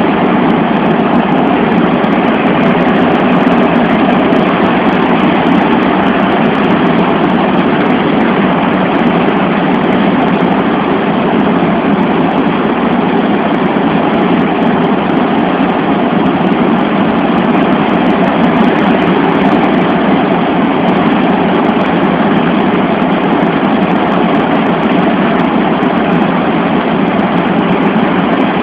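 Cabin noise inside the cargo hold of a Boeing C-17 Globemaster III: its four turbofan engines and airflow make a loud, steady noise that stays the same throughout.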